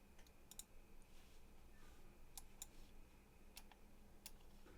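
Near silence, with a few faint, scattered computer mouse clicks.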